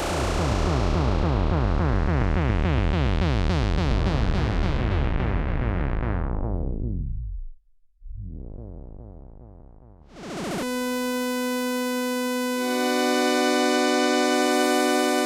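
Sequential Prophet 6 analog synthesizer, played dry: a thick, many-toned sound sweeps steadily downward for about seven seconds, nearly dies away, then sweeps back up. It settles into a sustained chord of steady held notes, with another note joining partway through.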